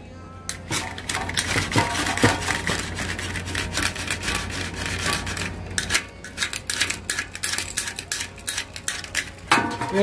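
Irregular clicks, taps and rustles as hands handle a small model cable tray and a plastic spirit level against a tabletop, over a faint low steady hum.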